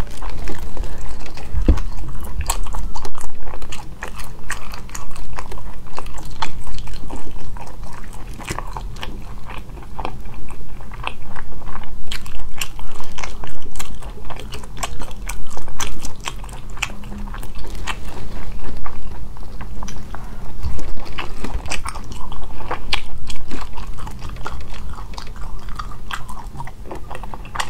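Close-miked eating of sea snails in sauce: chewing and biting on the soft meat with many sharp, irregular wet clicks and smacks.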